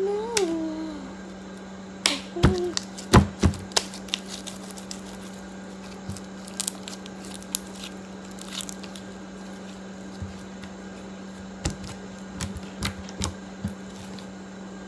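Slime being played with by hand: scattered sharp clicks and pops, busiest about two to four seconds in, then sparser, over a steady low hum. A brief vocal sound at the very start.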